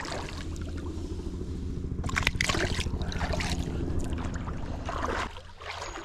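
Creek water trickling under a steady low hum, with brief noisy sounds about two seconds in and again near five seconds.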